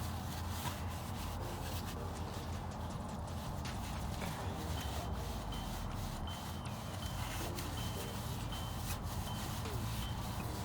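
A rag rubbing and wiping old grease off a car's wheel spindle in short repeated strokes, over a steady low rumble. A faint high beep repeats in the background from about halfway through.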